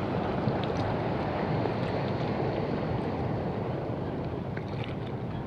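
Steady wind noise on the microphone over the wash of sea waves, with a few faint ticks.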